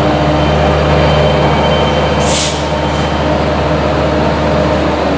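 Metrolink F125 diesel locomotive's Caterpillar V20 engine running steadily under power as it pushes its train out of the station, with a low even drone. A short hiss comes about two seconds in.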